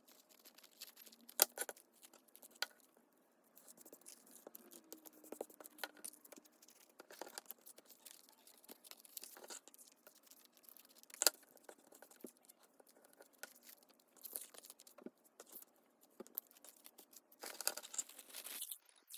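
Paper and cardstock being handled: rustling and crinkling with scattered light taps and clicks, growing into a denser rustle near the end.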